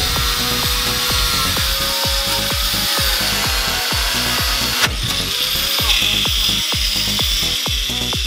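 Angle grinder cutting and grinding steel, a steady whine over a hiss, with the grinder's pitch shifting after a cut about five seconds in. Background music with a steady beat plays under it.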